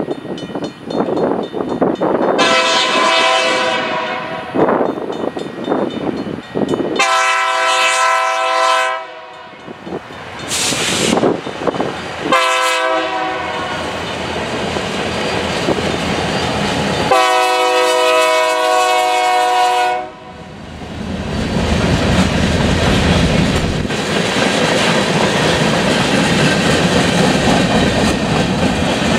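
A Nathan K3LA three-chime air horn on a BNSF GP39-2 locomotive sounds the grade-crossing signal: long, long, short, long, over the engine rumble of the approaching Geeps. After the last blast the locomotives pass, and the tank cars roll by with a steady clatter of wheels on the rails.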